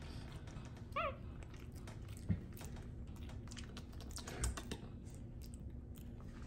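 Capuchin monkey eating banana: quick wet clicks and smacks of its mouth and tongue as it mashes the fruit into mush. A short squeak comes about a second in, and a single thump a little after two seconds.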